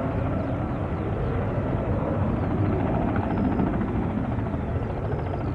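Airbus A321neo's twin jet engines running as the airliner rolls along the runway, a steady rumble.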